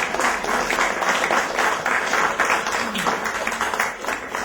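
Audience applauding: a dense patter of many hands clapping, easing off near the end.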